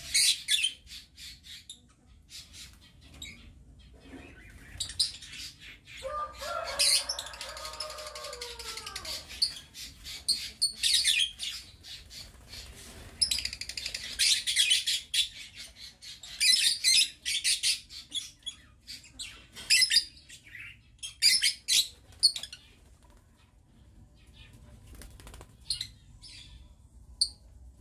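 A flock of lovebirds chattering: clusters of rapid, high-pitched chirps that come and go. About six seconds in, a lower call with several tones slides down in pitch over about three seconds.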